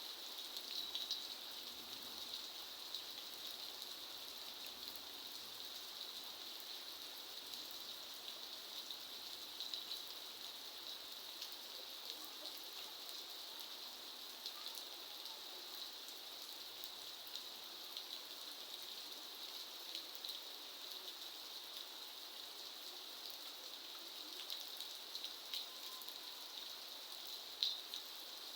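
Steady rain falling: an even hiss of drops, with now and then a single louder drip standing out, one of them near the end.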